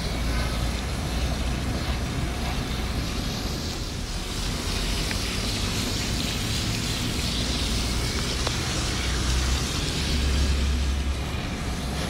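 Water spraying hard from a garden hose nozzle through a metal mesh filter, a steady hiss and splatter, over a steady low rumble.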